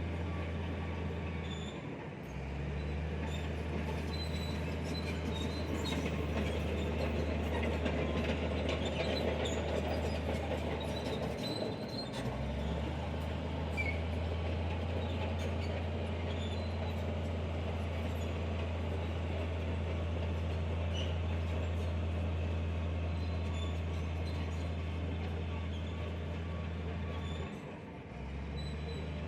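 Heavy diesel earthmoving machine running steadily under load, its low engine drone dipping briefly three times, with the clank and squeal of metal crawler tracks.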